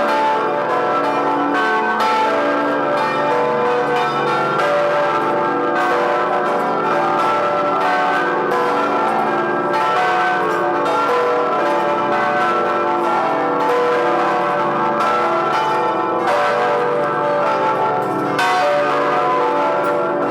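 Church bells of the Vilnius Cathedral belfry ringing together as a continuous peal. Many strokes follow in quick succession, and their ringing overlaps without a break.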